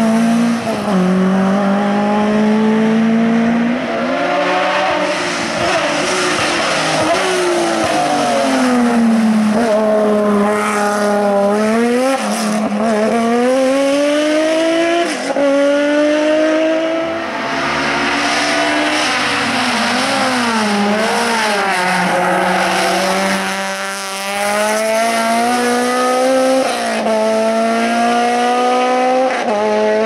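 Several hillclimb race cars driven flat out one after another. Their engines rev hard and rise in pitch, dropping sharply at each gear change or lift.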